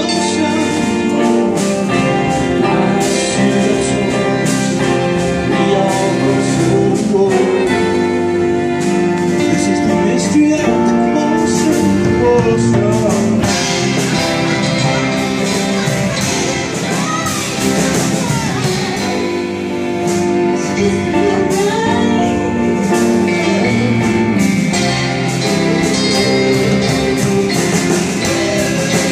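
Live band playing a song: a woman singing lead into a microphone over electric and acoustic guitars, drums, violins and cello.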